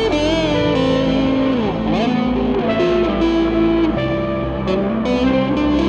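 Instrumental music led by an electric guitar holding long notes that slide up and down in pitch, over a steady bass line.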